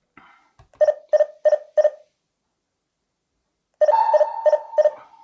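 Phone's text-message alert: two groups of four short electronic beeps, about three a second. The second group has a steady higher tone held under it that trails on after the beeps. Each alert marks an incoming SMS sent by the home alarm.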